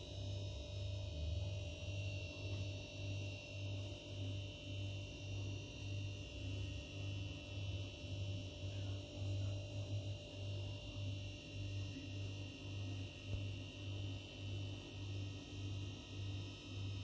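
A low electrical hum that pulses evenly, about two times a second, with faint steady whine above it.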